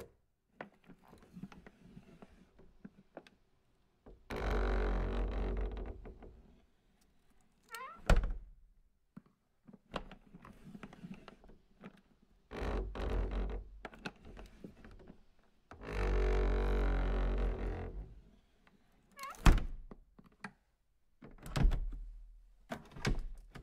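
Phone vibrating on a wooden surface: three buzzes of about two seconds each, rattling against the wood. Several sharp knocks come between and after them.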